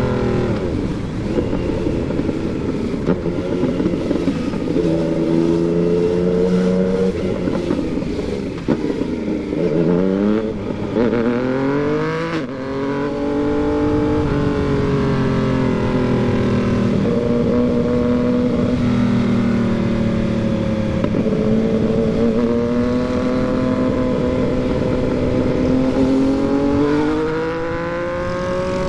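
Yamaha MT-09's three-cylinder engine under way, revs falling and climbing several times with gear changes, including a sharp climb about ten seconds in, then running steadier with slow rises and falls.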